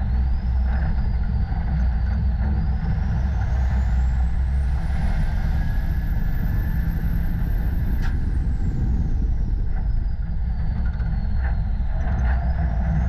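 Racing semi-truck's diesel engine running under load, heard up close from the truck itself. A high whine climbs over a few seconds, holds, falls away after a sharp click about eight seconds in, and climbs again near the end.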